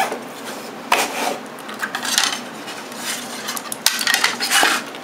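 Hard plastic clicks and rubbing as a Razer Mamba wireless mouse is worked off its clear plastic display pedestal and handled, with sharp clicks about a second in and a cluster around four seconds in.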